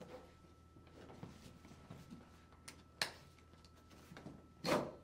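Faint handling noise from a folded inflatable kayak and its webbing strap as the strap is pulled around and fastened. There is a sharp click about three seconds in and a short, louder rustle near the end.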